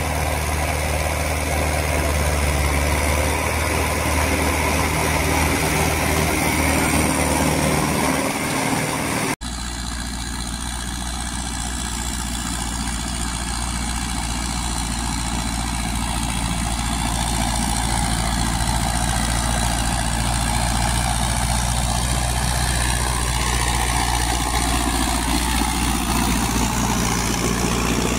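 Solis 5724 tractor's diesel engine running steadily while it pulls an 18-disc harrow through the field, with a short break about nine seconds in.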